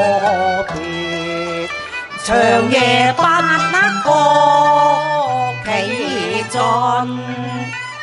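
A woman singing a Cantonese opera (yueju) aria in long phrases with a wavering vibrato, over instrumental accompaniment that includes a bowed string, with short breaks between phrases about two and five and a half seconds in.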